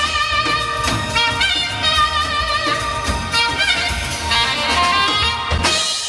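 Background music: a melodic instrumental track with a wavering lead line, fading out near the end.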